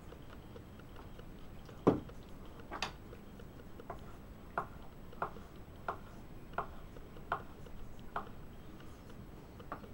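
Knife slicing cornichons on a wooden cutting board: short, even clicks of the blade striking the board, about three every two seconds, after a louder knock about two seconds in.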